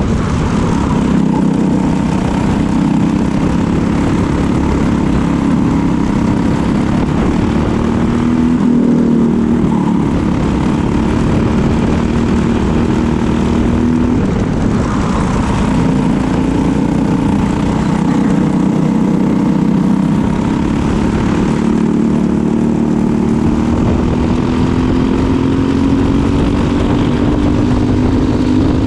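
Onboard sound of a Briggs & Stratton LO206 kart's single-cylinder four-stroke engine racing at speed, its pitch climbing and dropping several times as it revs up and slows.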